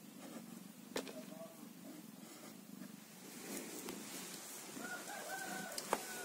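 Mother cat purring steadily, with newborn kittens giving thin high mews: a short one about a second in and a longer one near the end. Two sharp clicks from handling.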